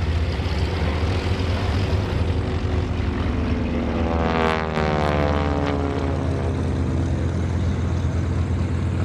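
North American SNJ Texan's nine-cylinder Pratt & Whitney R-1340 Wasp radial engine and propeller running at aerobatic power in a steady drone. About four seconds in, the aircraft passes overhead and the sound sweeps down in pitch as it goes by.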